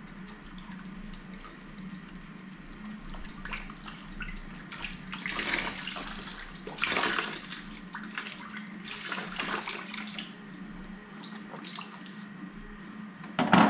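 Water running out through a valve fitted to the neck of an upturned plastic bottle: a steady trickle that gushes louder in several surges.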